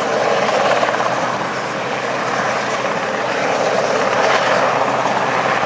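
Westland Sea King HAR.3A search-and-rescue helicopter hovering for a winch pick-up: the main rotor and twin turboshaft engines give a loud, steady rushing drone.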